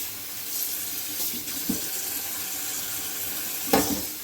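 Cold tap water running steadily over freshly soaked chow mein noodles in the sink to rinse them, with a louder knock near the end.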